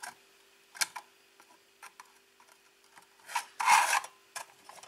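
Finned metal back cover of a power inverter sliding along the casing: a light tap about a second in, then a loud metal-on-metal scrape lasting under a second, about three and a half seconds in.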